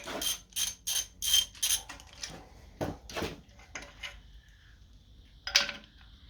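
Hand tools working on an engine's bolts: a quick run of sharp metallic clicks and clinks, thinning out, with one louder clink near the end.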